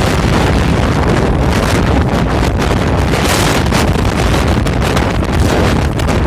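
Gale-force blizzard wind at about 27 m/s buffeting the microphone: loud, steady rumbling roar with gusty hiss of blown snow.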